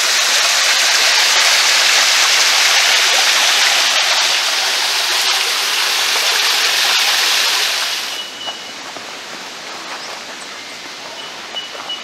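Creek water running and splashing into a round hole in the rock bed, a loud steady rush that drops off suddenly about eight seconds in, leaving a much quieter background with a faint thin high tone.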